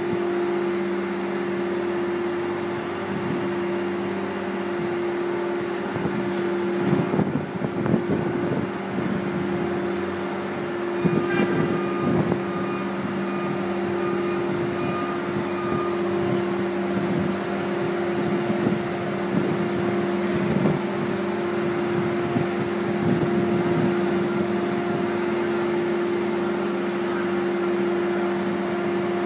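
Heavy crane machinery running during a lift, with a steady low hum. A thin high whine joins about a third of the way in for several seconds, and a few brief louder swells come and go.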